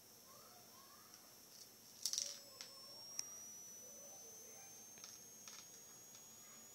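A quick cluster of small sharp clicks and rattles about two seconds in, then a single click and a few faint ones: a screwdriver working on small screws as a laptop screen assembly is taken apart.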